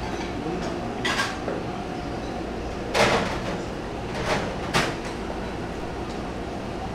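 Metal spoon clinking and scraping against the bowl of sundae-gukbap as it scoops up broth and meat, four short clinks with the loudest about three seconds in, over a steady background hiss.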